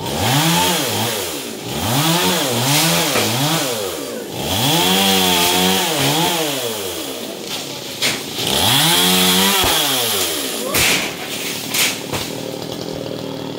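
Small two-stroke chainsaw revving up and falling back to idle again and again, about six surges, the longest about two seconds, as it cuts through coconut frond bases. A few sharp knocks come near the end while the saw idles.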